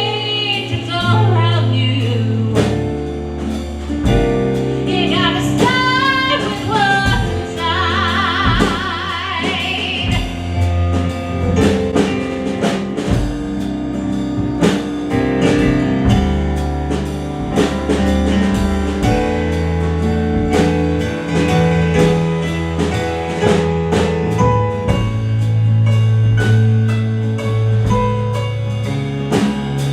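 Gospel song instrumental break: a band with drum kit and sustained bass and chords plays on, with wordless vocal runs and ad-libs in roughly the first ten seconds.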